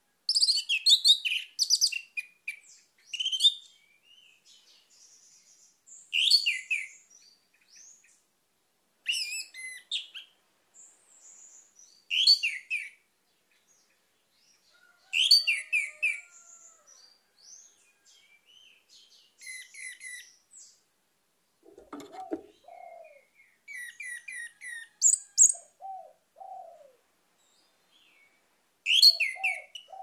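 Orange-headed thrush singing: loud, varied phrases of rapid high whistles and trills, about one every three seconds, with softer notes in between.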